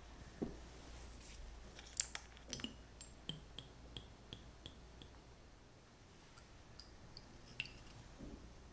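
Small clicks and light clinks of a glass liqueur bottle and a brass measuring spoon being handled as strawberry liqueur is measured out and poured into a glass of water. A sharp click about two seconds in is the loudest, followed by a run of light ticks about three a second and a few more clicks near the end.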